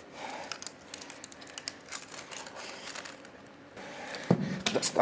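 Metal chain of a weight belt clinking and rattling in small irregular clicks as it is threaded through a bumper plate and clipped on for weighted pull-ups.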